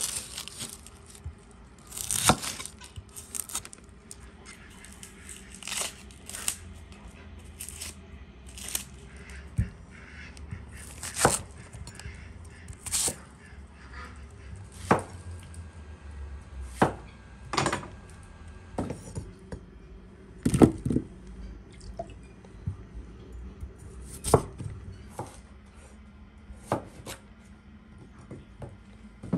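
Large kitchen knife cutting onions and a potato on a wooden chopping board: separate sharp knocks of the blade against the board, unevenly spaced, about one every second or two.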